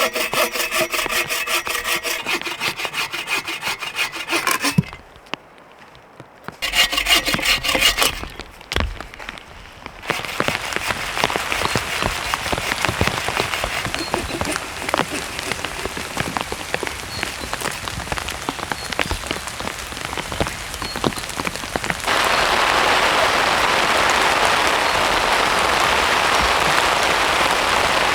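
Hand saw cutting firewood in quick, even back-and-forth strokes, in two spells with a pause between. Then a long steady rushing hiss with scattered ticks, louder for the last several seconds.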